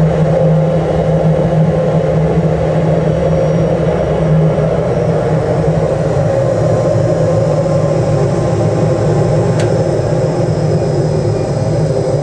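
Lindberg gas-fired aluminum melting furnace running: a steady burner and combustion-blower noise with a low hum underneath.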